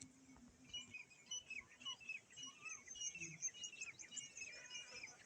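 A flock of small birds chirping, with many short high calls overlapping into a busy chatter that builds from about a second in.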